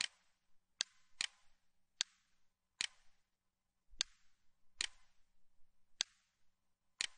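Computer mouse button clicking, about nine sharp single clicks spaced irregularly under a second or so apart, each one setting a node of a Bezier curve in a drawing program.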